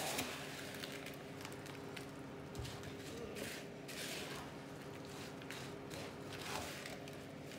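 Wooden spoon stirring a sticky mix of puffed rice cereal, melted marshmallow and M&Ms in a plastic bowl: a few rustling, scraping strokes a second or two apart.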